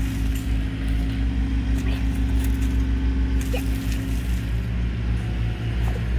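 An engine running steadily with a low, even hum, and a few faint ticks over it.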